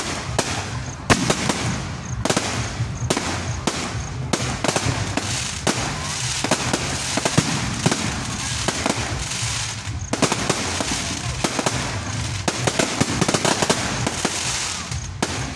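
Aerial fireworks display: shells bursting in quick succession, a dense barrage of bangs over a continuous crackle.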